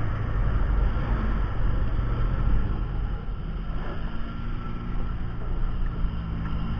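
Motorcycle engine running steadily while riding, with a rush of wind and road noise.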